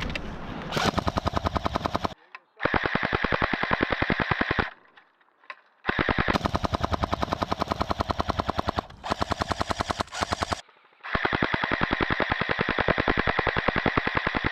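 A&K M249 PARA airsoft electric gun firing four long full-auto bursts, its gearbox cycling in a rapid even rattle, with short pauses between bursts.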